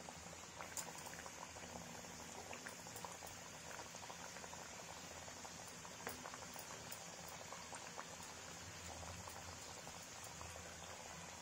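Stuffed aloo kachori deep-frying in hot oil in an iron kadhai over a medium flame. The oil bubbles with a steady hiss, dotted with small scattered pops and crackles.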